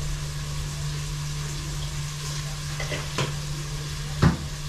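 Onions sizzling in sunflower oil in a pot over a gas burner, with a steady low hum underneath. A couple of faint clicks come about three seconds in and a sharp knock near the end.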